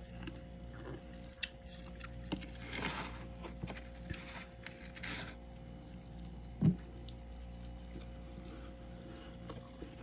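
A metal spoon scraping and scooping packed freezer frost: scattered clicks, with scratchy bursts about three and five seconds in. A single low thump, the loudest sound, comes a little before seven seconds.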